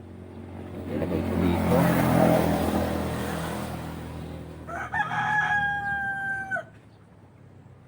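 A rooster crows once, about five seconds in: one long, clear call of under two seconds that drops away at the end. Before it, a motor vehicle passes, swelling and then fading.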